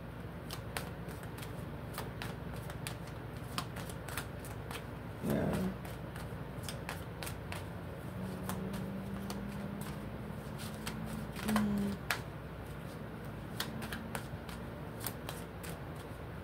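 A deck of tarot cards being shuffled by hand, with many short, irregular card clicks and snaps. A voice makes two brief murmurs, about five seconds in and near eleven and a half seconds.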